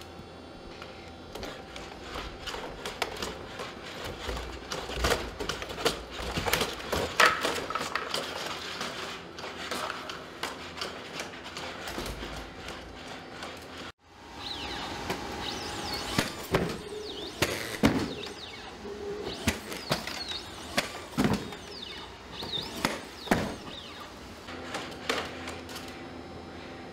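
Boston Dynamics Spot quadruped robot working a door: a steady motor hum with scattered clicks and knocks. After a sudden cut about halfway in, the Atlas humanoid robot jumping between boxes, its landings coming as several heavy thumps with short squeaks, and the hum returns near the end.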